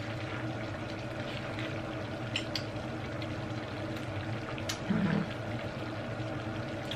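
Coconut-milk seafood stew simmering in a pan on the hob, a steady bubbling hiss, with a few sharp clicks and smacks from eating crab by hand. A short low hum about five seconds in is the loudest moment.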